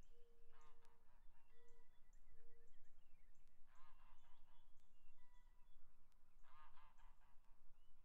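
Geese honking faintly in three short bursts a few seconds apart, with faint high chirps between them.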